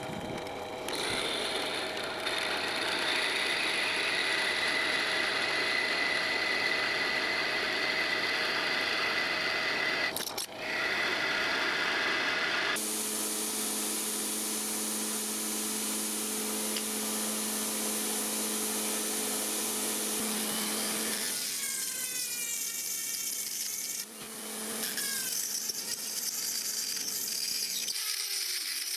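Workshop power tools running steadily in a series of edited segments, the sound changing abruptly about a third of the way in, near the middle, and twice more later on.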